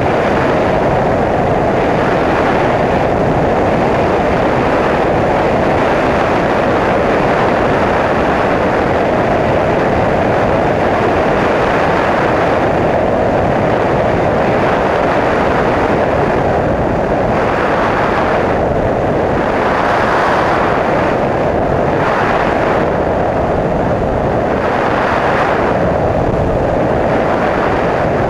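Bristell NG5 light aircraft in flight heard from an onboard camera: a loud, steady rush of wind and engine noise. The hiss swells and eases several times in the second half.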